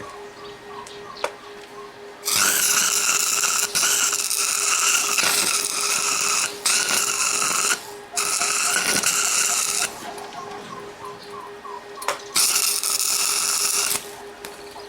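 Electric arc welder laying a weld on a broken machete blade: the arc crackles and sizzles in about five runs of a second or two each, stopping briefly between them, with a longer break about two-thirds of the way through. A steady low hum goes on underneath.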